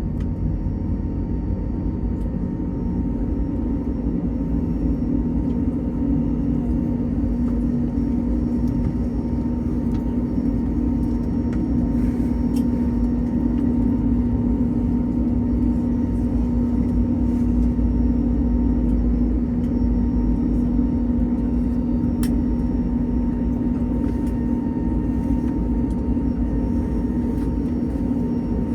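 Steady low cabin drone of an Airbus A321neo on the ground after landing, with a strong constant hum and a faint higher tone over it. A few faint clicks stand out in the middle.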